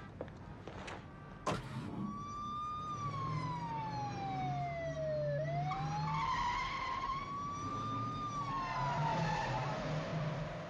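Police car siren wailing slowly: a single tone that falls for a few seconds, climbs back, then falls again, over a car engine running. It is preceded about a second and a half in by a sharp bang like a car door slamming.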